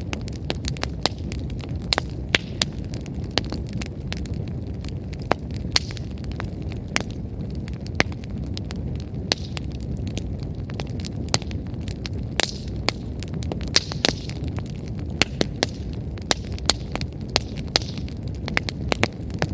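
Wood campfire burning: a steady low rumble of flame with frequent irregular sharp crackles and pops from the burning firewood, and a few brief hisses.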